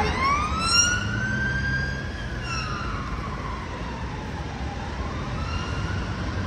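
Emergency vehicle siren in a slow wail: the tone rises for about two seconds, falls away, then starts to rise again near the end, over a low traffic rumble.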